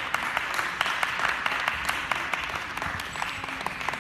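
Spectators applauding: many hands clapping at once, a dense patter of quick claps.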